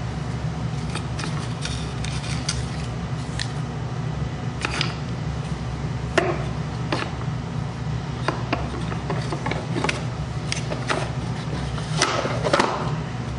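Hands handling measuring tools and wooden cases: a steel micrometer and a paper slip being set into a small wooden box, with light scattered clicks and knocks of metal and wood, a few louder knocks near the end as another wooden case is moved. A steady low hum runs underneath.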